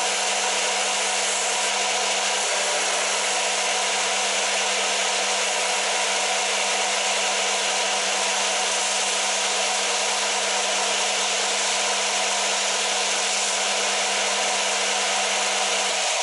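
Warrior W0506 combination belt-and-disc sander running at a steady speed, its motor humming. A lump of dried silicone is pressed against the spinning sanding disc and then against the moving belt to clean the clogged abrasive.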